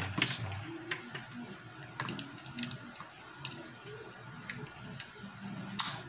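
Scattered light clicks and taps, about ten at irregular intervals, from multitester test probes and the aircon's power cord being handled during a continuity check.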